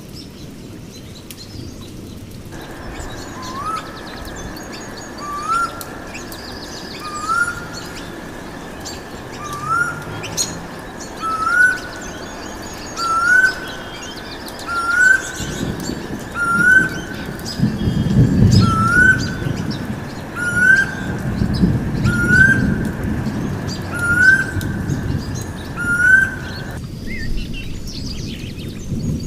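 Birdsong: one bird repeats a short rising whistled note about every one and a half to two seconds, over fainter high chirping from other birds. A low rumble swells in under it in the second half.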